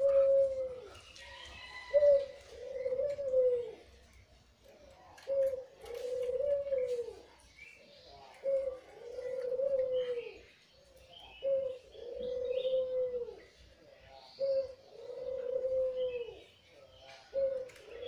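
A caged white Barbary dove (puter putih) cooing over and over: each call is a short note followed by a longer rolling coo, repeated about every three seconds, six times. Faint chirps of small birds sound in the background.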